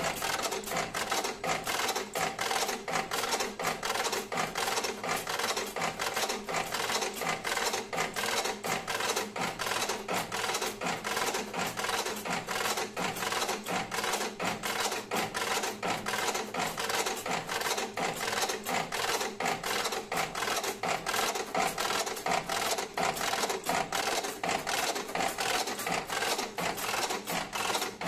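Servo-driven electric cigarette filling machine (Fides FDS8 Smart) running, its filling mechanism clacking in a fast, even rhythm without a break.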